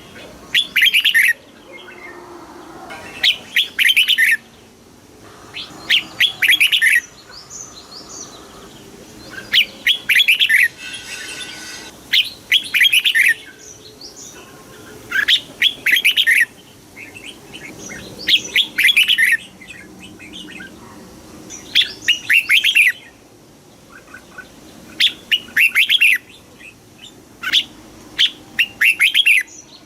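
Red-whiskered bulbul singing: short, rapid warbling phrases about a second long, repeated roughly every three seconds.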